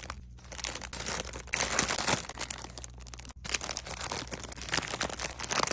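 Close-miked plastic packaging crinkling and rustling as it is handled, in three long stretches broken by two brief pauses.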